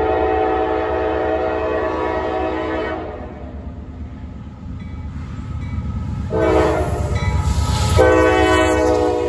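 Norfolk Southern freight train's diesel locomotive sounding its multi-chime air horn: a long blast that ends about three seconds in, then after a pause a short blast, and a long blast starting about a second before the end. Underneath runs the low rumble of the diesel engines, growing louder as the locomotives pass close by near the end.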